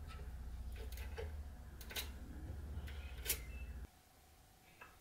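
Sharp metallic clicks and light taps of a small hand tool working on a steel knife blade clamped in a bench vise, over a steady low hum that cuts off abruptly about four seconds in. One faint tick follows near the end.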